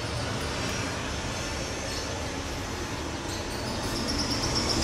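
Airbus A330 jet airliner taxiing with its engines at idle: a steady low rumble and hiss. A faint high whine comes in near the end as the sound grows a little louder.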